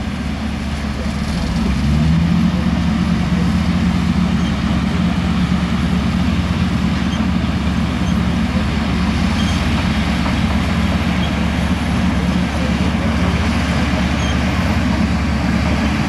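Shantui crawler bulldozer's diesel engine working under load as the blade pushes a pile of soil. About two seconds in the engine revs up and grows louder, then holds steady.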